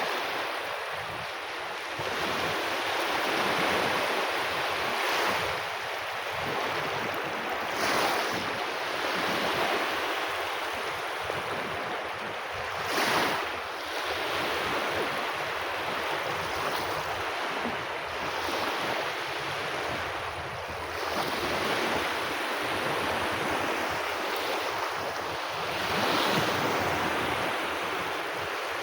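Sea waves breaking on a beach: a continuous wash of surf that rises and falls every few seconds as waves come in, with some wind on the microphone.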